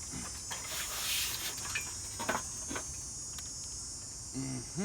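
Steady, high-pitched chorus of insects, with a few light clicks and knocks. Near the end a wavering, pitched call begins.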